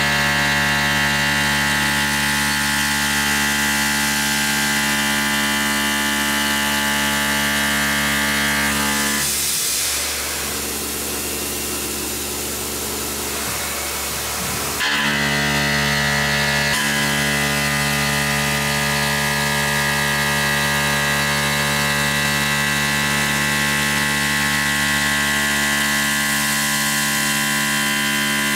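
Tormach PCNC 1100 CNC mill cutting aluminium with an end mill, a steady machining whine made of many held tones. About nine seconds in the tones drop away for roughly five seconds under a hissing noise, then the cutting whine comes back.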